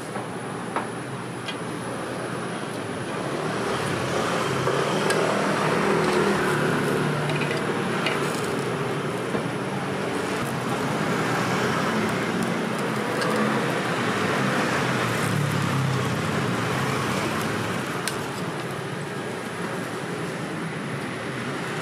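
Street traffic noise: passing vehicles swell louder from about three seconds in and ease off near the end, with a few short sharp clicks over the top.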